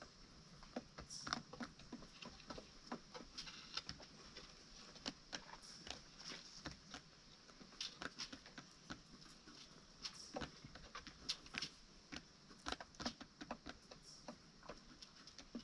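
Chickens pecking and scratching, making light, irregular taps and clicks several times a second.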